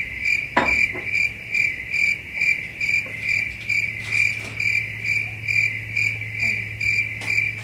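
Crickets chirping, edited in as a sound effect over the pause: an even chirp repeating a little over twice a second over a steady low hum. A faint knock about half a second in.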